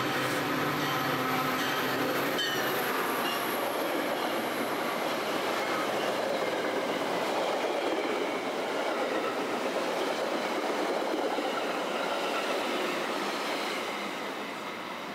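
Metra commuter train moving through the station: wheels running on the rails with a dense, steady rushing noise. A low steady hum under it drops away about two and a half seconds in, and the sound fades near the end.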